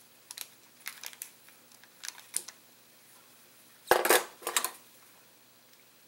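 A pair of diagonal-cutting nippers set down on a wooden workbench with a clatter about four seconds in, followed by a smaller knock. Before it come a few light clicks and crinkles from the lithium-polymer pouch cells and their packaging being handled.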